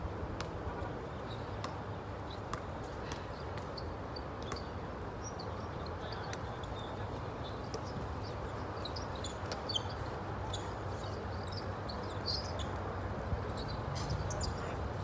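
Outdoor court ambience: a steady background noise with many short high chirps, thicker in the second half, and a few single knocks.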